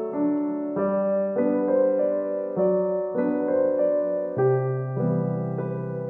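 Background piano music, with a new chord or note struck about every half second.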